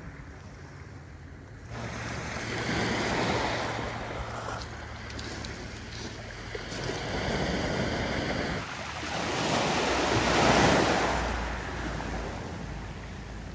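Sea waves washing up onto a pebble beach, a hissing wash that swells and falls back in surges, loudest about ten seconds in.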